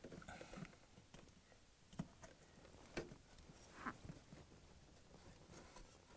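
Faint handling clicks and light knocks, three short ones about two, three and four seconds in, as a plastic compressor start device with its capacitor is pushed onto the refrigerator compressor's three terminals.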